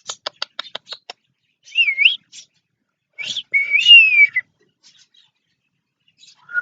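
Eclectus parrot making a quick run of about eight knock-like clicks, then two whistles: a short wavering one about two seconds in and a longer one that dips and then slides down.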